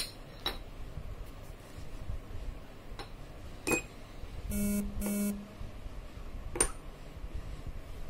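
HIEON 12 access-control keypad's buzzer beeps twice in quick succession as an RFID card is read. Sharp clicks come at the start, about three and a half seconds in, and again a second after the beeps.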